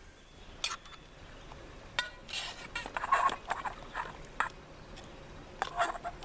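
Light scattered clicks and scrapes of a utensil against metal cookware, with a few short squeaks about two to three seconds in, as food is moved from a canteen cup onto a plate.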